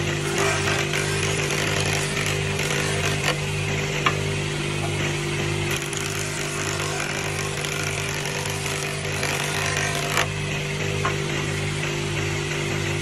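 Wood jointer-planer running steadily while its cutterhead planes a strip of hardwood fed across the table: a dense, noisy shaving sound over a low hum that pulses about twice a second, with a couple of sharp clicks.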